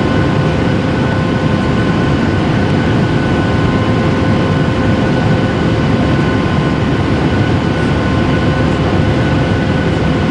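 Jet airliner cabin noise: the steady rush of the engines and the air over the fuselage, with several steady whining tones over it, heard from inside the passenger cabin.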